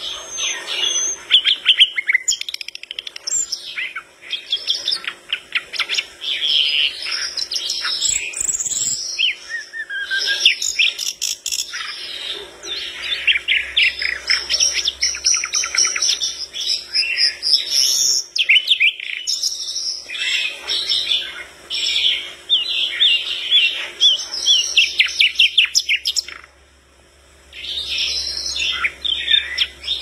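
Caged brown-chested jungle flycatcher (sikatan londo) singing continuously in varied, rapid chattering phrases and trills, with one short break about three seconds before the end.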